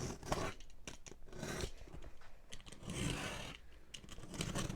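A large cardboard box being worked open by hand, with irregular scratchy rustling, scraping and small clicks of cardboard.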